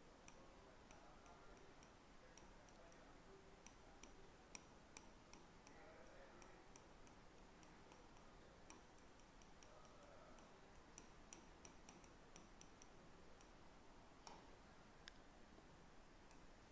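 Near silence: room tone with faint, irregularly spaced light clicks, a few per second.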